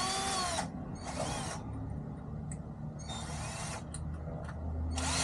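Power drill run in four short trigger bursts, its motor whine rising and falling with each burst, as it works into the wood of a chair.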